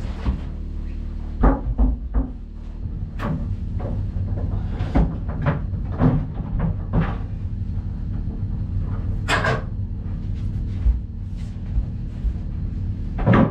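Painted plywood floor boards being lowered and worked into place: irregular wooden knocks and bumps as board meets board and the floor frame, a few louder thuds among them, over a steady low hum.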